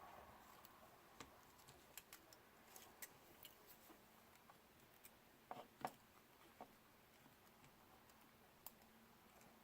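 Faint, scattered small clicks and ticks of hands handling the drone camera gimbal and its ribbon cable, with a couple of slightly louder clicks a little before six seconds in, over near silence.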